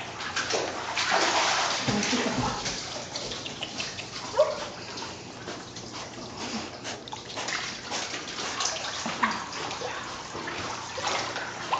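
Water splashing and sloshing as a dog swims and paddles in a pool, with one sharper splash about four seconds in.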